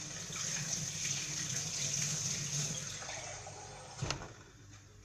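Water pouring for about three seconds, then trailing off, as a little water is added for the sauce. A single knock follows about four seconds in.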